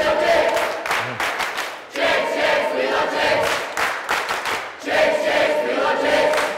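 A crowd of young campers shouting a chant together, in loud phrases about three seconds long.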